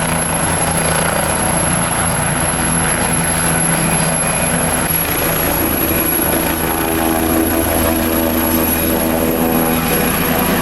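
Helicopter running steadily: a continuous rotor and engine noise with a thin high whine above it.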